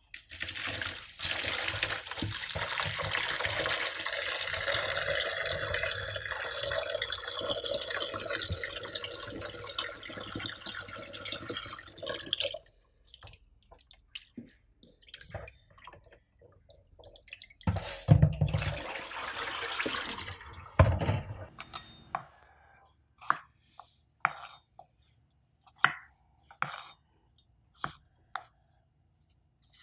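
Tap water pouring into a bowl of pork belly in a stainless steel sink, stopping abruptly about twelve seconds in. Later, water splashes as hands rub and rinse the pork in the bowl. Near the end come single sharp knife cuts, about one a second, as shallots are sliced on a plastic cutting board.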